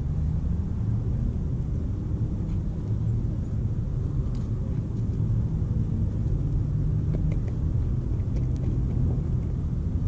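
A steady low rumble, with a few faint light clicks in the second half as a coyote noses at scattered bird seed.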